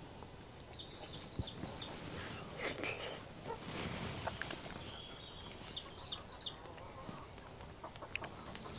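Birds chirping faintly: two short bursts of quick, high chirps, about a second in and again around six seconds in.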